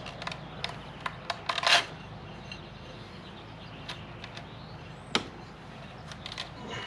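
Light clicks and taps of hands working on a scooter's exposed belt drive and variator: a quick run of them in the first two seconds, then a single sharper click about five seconds in.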